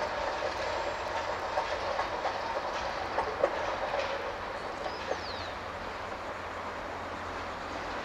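Freight train wagons rolling away on the rails, the wheels clacking over the rail joints, the sound slowly fading as the train recedes.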